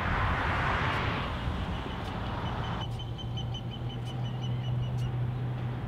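A steady low traffic hum, with a rushing noise over it that fades and then cuts off suddenly about three seconds in. A faint, rapid series of high pips runs through the middle.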